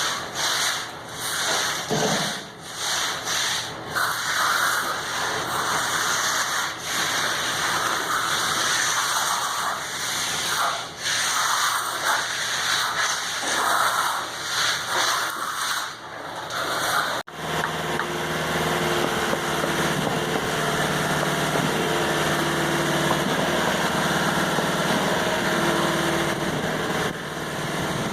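Rough scraping and rubbing of concrete work, coming and going with short pauses, then cut off sharply and followed by a steady small engine running.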